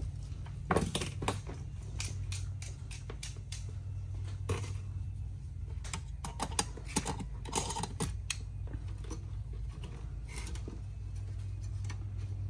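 Scattered small clicks and taps from a soldering iron, its stand and wires being handled around a metal-framed battery pack, over a steady low hum.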